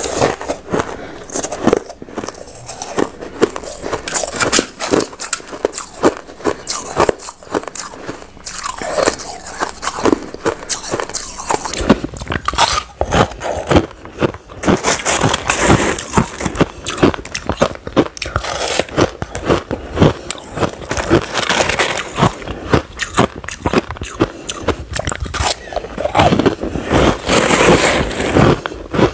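Crushed ice being bitten and chewed, a dense run of sharp, loud crunches close to the microphone.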